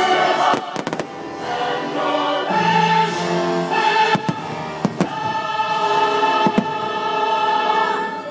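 Fireworks show music with a choir singing, and fireworks shells bursting over it: a quick cluster of bangs about half a second in, then single bangs at about four, five and six and a half seconds.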